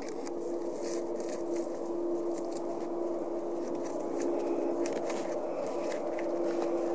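Twin-engine jet airliner's engines running on the runway: a steady drone with one held tone, and scattered faint clicks over it.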